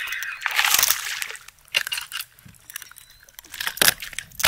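A hooked bass splashing at the water's surface as it is reeled up to the kayak and lifted out, in noisy surges of sloshing water, with a few sharp knocks in between.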